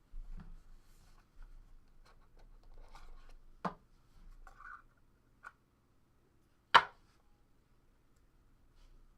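Hands handling trading cards and their packaging on a table: light rustling and scraping with small clicks, a sharper click a little past a third of the way in, and one loud sharp knock about two-thirds through.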